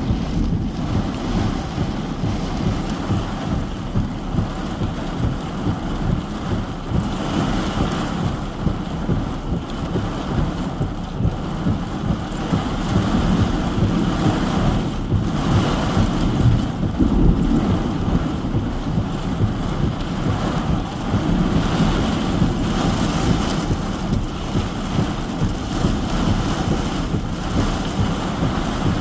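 Heavy rain and gusting wind of a strong thunderstorm, with wind buffeting the microphone. It swells louder for moments around a quarter and a half of the way through.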